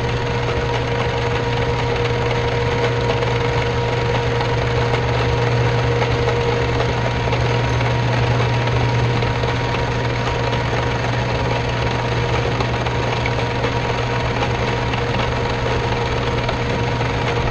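Small bench metal lathe running steadily, its motor and drive giving a constant hum while the tool cuts the turning workpiece with a continuous scraping sound.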